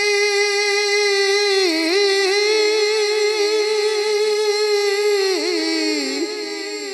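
A man singing a naat unaccompanied into a microphone, holding one long high note on a syllable of the verse and then ornamenting it with quick wavering turns of pitch that slowly sink and fade near the end.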